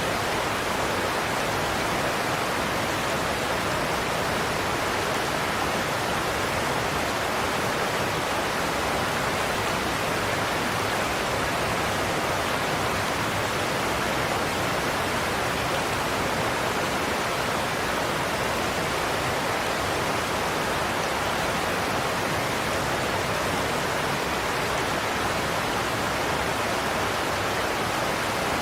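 Godafoss waterfall's heavy cascade of falling water, a steady, even roar with no changes.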